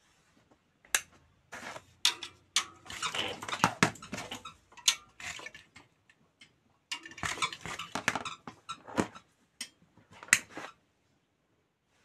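Irregular metallic clattering and rattling in uneven bursts with sharp clicks, pausing briefly midway and stopping shortly before the end.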